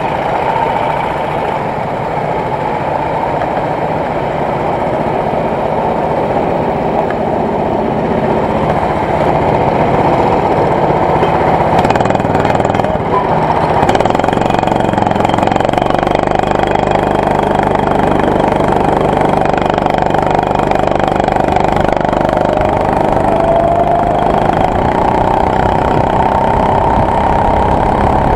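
Go-kart engines running at idle, then the kart's own engine revving up as it pulls away from the pit lane and running on, heard from the driver's seat. The pitch climbs near the end as the kart speeds up.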